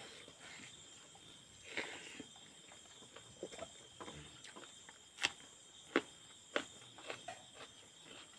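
Close-up eating sounds of rice eaten by hand from a steel plate: scattered sharp wet chewing smacks and clicks, the three loudest about five, six and six and a half seconds in.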